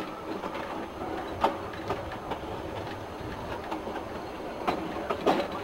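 Metre-gauge train coach rolling slowly over station-yard track and points: a steady rumble of wheels on rail with a few irregular clicks and knocks as the wheels cross rail joints, loudest near the end.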